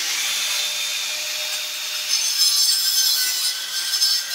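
Corded angle grinder with a cutting disc running steadily and cutting through a buried PVC water pipe: a steady high whine over a grinding hiss.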